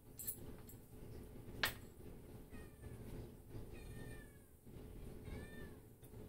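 A cat meowing three times, each call falling in pitch. A single sharp click about a second and a half in is the loudest sound.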